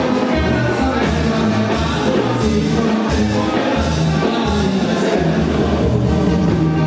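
Live banda sinaloense music: a sousaphone pumps a steady bass under trumpets, trombones, clarinets and drums, with a man singing over the band.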